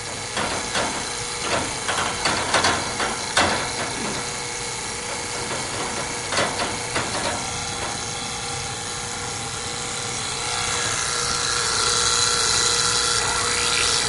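HVAC vacuum pump running steadily on a heat pump system that is under deep vacuum, with clicks and knocks as the manifold and service-port valves are handled to isolate the system before the pump is shut off. The pump's hiss grows louder near the end.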